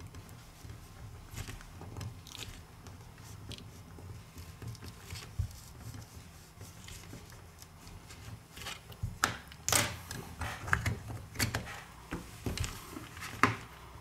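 Plastic opening card scraping and clicking as it is worked into the glued seam under a phone's back glass, cutting the adhesive. Small irregular scrapes at first, with sharper, louder clicks and scrapes in the second half.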